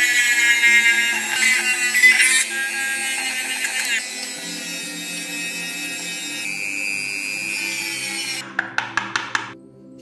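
Background music with sustained notes, which stops about eight and a half seconds in, leaving a quick run of short clicks from tool work.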